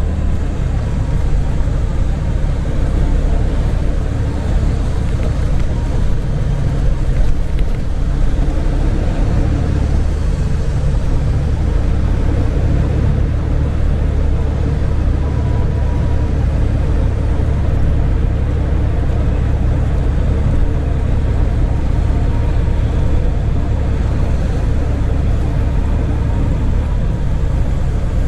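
Semi-truck running: a steady low engine and road drone with no change in pace.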